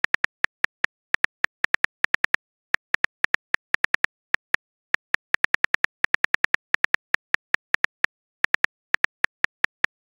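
Phone keyboard typing clicks from a texting app: an irregular patter of short, bright ticks, roughly four to six a second with a few brief pauses, as a message is being typed.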